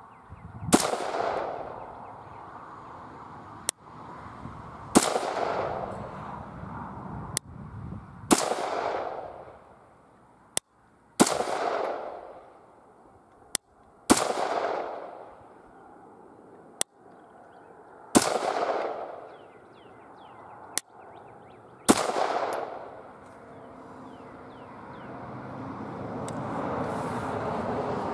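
Rock River Arms LAR-15 AR-15 rifle fired semi-automatically at a steady, unhurried pace: about fourteen sharp shots a second or three apart, many trailing off in a long echo across the range. The shooting stops several seconds before the end.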